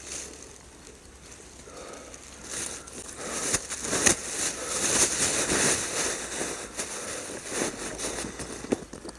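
Footsteps through tall dry grass, the stalks swishing and crackling against the legs; loudest in the middle.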